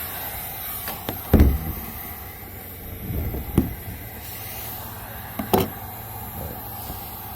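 Steady hiss of a heating tool blowing on the kayak's plastic, with a few knocks and thumps, the loudest about a second and a half in.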